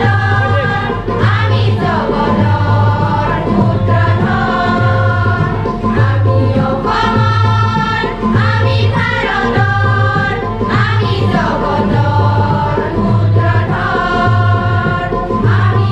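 A large group of women singing a song together as a choir, with a regular low beat about once a second underneath.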